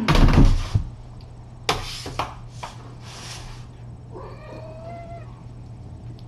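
Kitten meowing once, a drawn-out mew about a second long starting about four seconds in. Before it come a loud burst of rustling at the start and several shorter rustling scuffles as kittens play on a fleece blanket.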